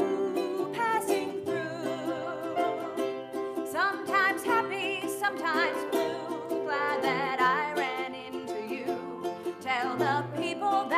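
Ukulele and piano playing together, with a melody line that wavers in vibrato above them.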